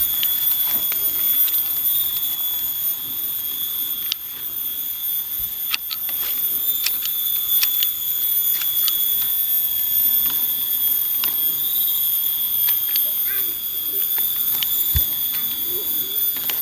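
Steady, high-pitched drone of insects such as cicadas, several constant shrill tones layered together, with scattered sharp clicks throughout.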